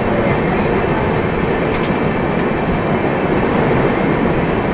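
Passenger train running, heard from aboard the coach: a steady, loud rumble of wheels and coach noise.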